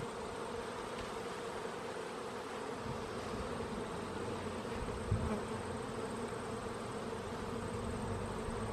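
Many honeybees buzzing around an opened hive, a steady hum.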